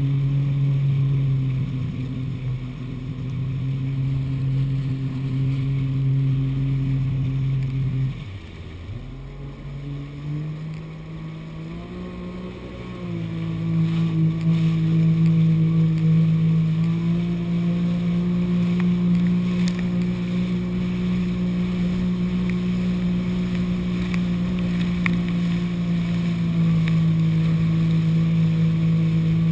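A two-stroke jet ski engine running at a steady cruise. About eight seconds in the throttle is eased and the engine note drops. Over the next few seconds it climbs back and then holds steady at a slightly higher pitch.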